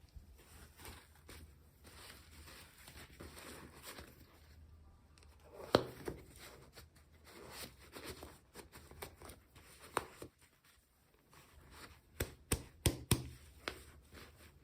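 Packaging being handled and opened by hand: soft rustling, crinkling and tearing, with sharp taps of small plastic pieces about halfway through and a quick run of several clicks near the end.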